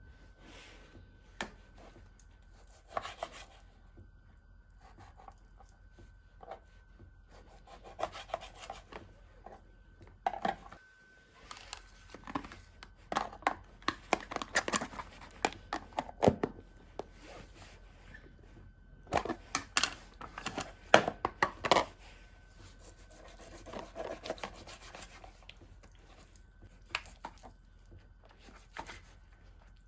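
Irregular rustling, rubbing and light knocks of things being handled, in uneven bursts, the busiest stretch in the middle; a faint steady thin hum sits behind.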